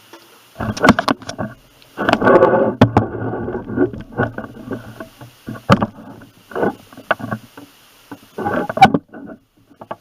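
Plastic LEGO BIONICLE pieces being handled: irregular bursts of clicking, rattling and knocking, with a few sharp clicks.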